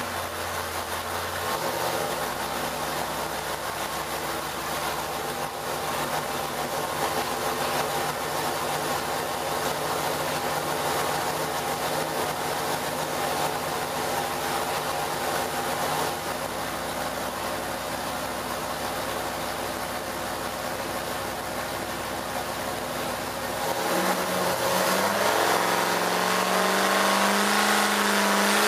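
Freshly rebuilt Ford Motorsport 460 cubic-inch big-block V8 running on an engine dyno at a steady speed. Near the end the revs are raised in steps, so its pitch climbs and it gets louder.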